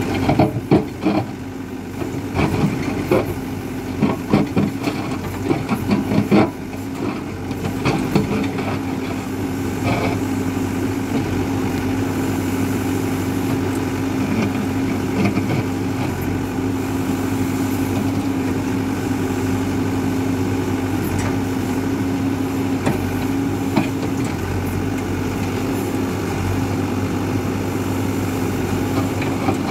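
Hidromek 102B backhoe loader's diesel engine running steadily under work. Sharp metallic knocks and scrapes of the digging bucket against hard ground come thick in the first several seconds, then only now and then.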